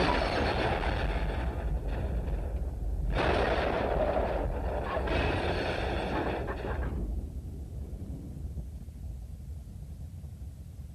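A building exploding in a film sound effect: a sudden loud blast, two more blasts about three and five seconds in, then a low rumble that dies away.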